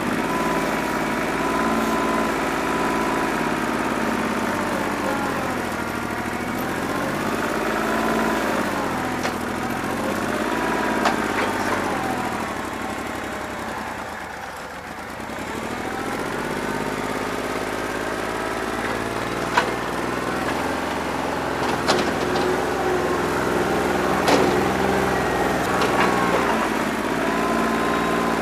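New Holland 1320 compact tractor's three-cylinder diesel engine running, its speed rising and falling again and again, with a few sharp clanks in the second half. It has a bad injector and is not running on all cylinders.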